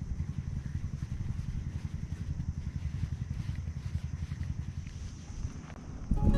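A small engine running steadily at constant speed, a low, fast, even chugging rumble.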